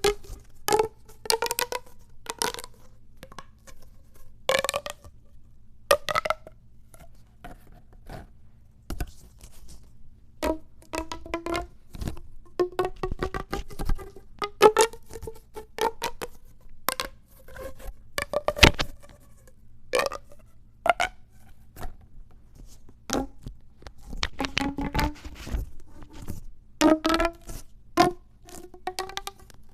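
Pop tube fidget toys being stretched and squashed: the ribbed plastic tubes crackle in short runs of pops that rise in pitch as they are pulled out, with sharp clicks between.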